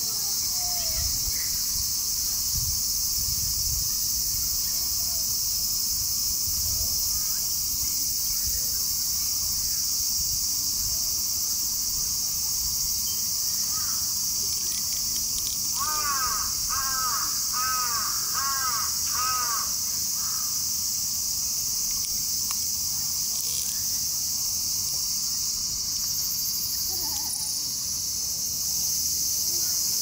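A steady high-pitched insect chorus, with a crow cawing six or so times in quick succession just past the middle.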